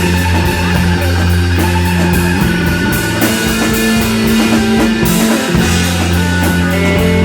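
A rock band playing live and loud with no singing: guitar lines over held bass notes and a drum kit with regular cymbal strokes. The bass drops out briefly about five seconds in.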